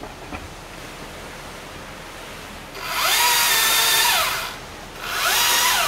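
Chainsaw run up to speed twice by an arborist taking down a maple tree. Each time the whine rises, holds steady, then falls away: first for about a second and a half starting about three seconds in, then again briefly near the end.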